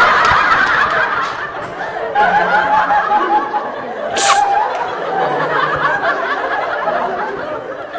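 People laughing and snickering after a sneeze, with a short sharp burst of noise about four seconds in.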